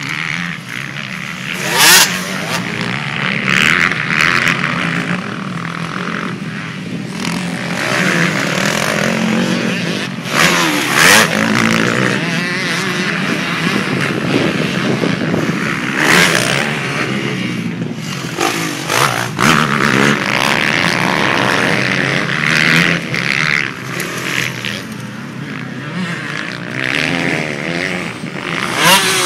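Several motocross dirt bikes running on a track, their engines revving up and dropping back as riders accelerate, shift and roll off over the jumps. The engine notes overlap, with a few sudden louder moments through the stretch.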